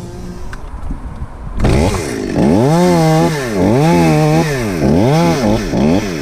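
Chainsaw engine, quieter for the first second and a half, then running loud with its revs dropping and climbing again about once a second as it cuts into the oak.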